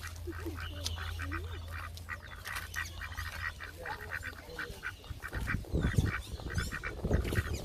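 A group of waterfowl calling in a rapid run of short honking notes, heard close up. A low rumble and knocks come in over the last couple of seconds.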